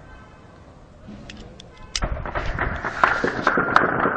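Heavy gunfire: a few scattered single shots, then about two seconds in a loud, dense run of rapid, overlapping shots that carries on.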